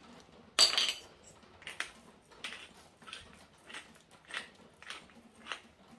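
Glass pepper grinder being twisted by hand, peppercorns crunching in short grinds about every half second, with one louder grind about half a second in.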